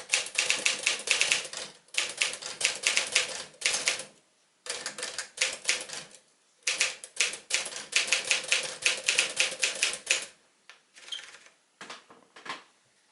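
1957 Smith-Corona Silent-Super portable manual typewriter being typed on: quick runs of key strikes with short pauses between them. The typing stops about ten seconds in, leaving a few faint scattered clicks.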